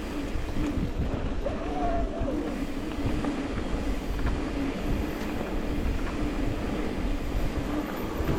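Mountain bike rolling over a dirt trail: a steady rumble of tyres and wind buffeting the camera microphone, with a brief whine that rises and falls about two seconds in.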